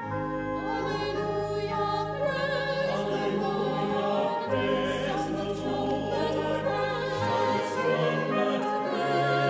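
Mixed church choir singing in harmony with vibrato, over held low accompaniment notes that change about seven seconds in.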